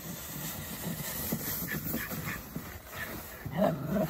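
Jack Russell terrier making playful vocal sounds, loudest near the end.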